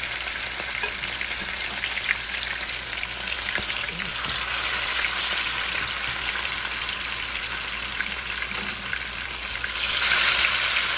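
Seasoned chicken pieces sizzling as they fry in hot grapeseed oil in a pot. The sizzle swells louder near the end as another piece is laid in with tongs.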